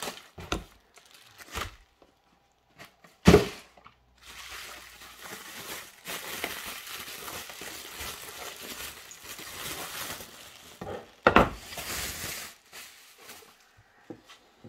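Plastic bubble wrap and packing paper crinkling and rustling as they are pulled out of a cardboard box and peeled off a boxed item. Two short, loud crackles or bumps come about three seconds in and again about eleven seconds in.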